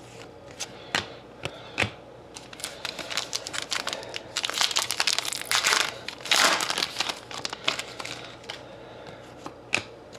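Foil trading-card pack being torn open and crinkled by hand: a dense crackling that builds from a few seconds in and is loudest just past the middle. A few light clicks of a stack of cards being handled come before it and near the end.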